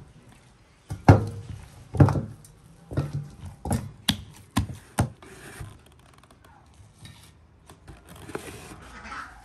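Hands working soft dough in an enamel basin: about seven dull slaps and thumps over the first five seconds, a couple with a sharper knock of the basin. Near the end, a softer rustle of plastic cling film being stretched and pressed over the basin.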